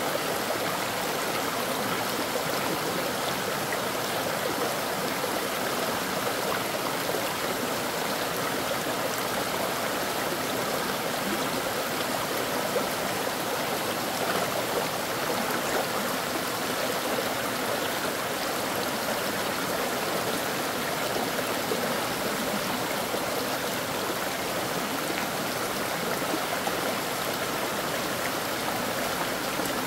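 Stream water flowing, a steady even rush with no breaks.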